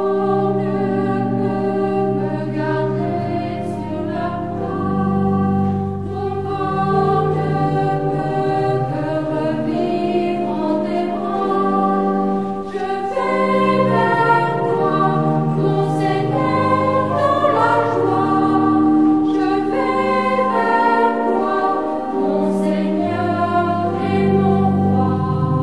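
A choir singing slow, sustained chords, several voice parts holding long notes that change slowly.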